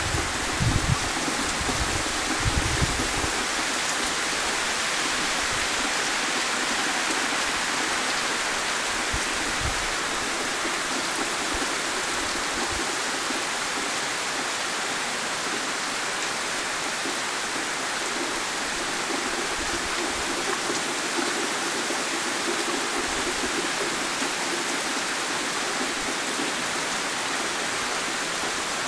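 Heavy rain pouring steadily on trees and ground, with water streaming off the edge of a porch roof. A few low thumps come in the first three seconds.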